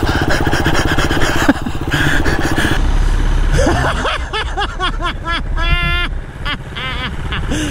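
Enduro dirt bike engine revving hard as a rider launches up a steep, loose hill climb at full throttle, with the pitch rising and falling as the revs change.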